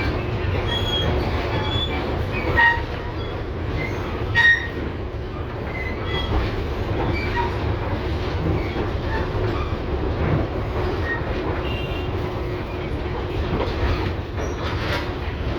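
LVS-2009 tram in motion, heard from on board: a steady rolling rumble with short, high wheel squeals against the rails. There are two louder knocks about two and a half and four and a half seconds in.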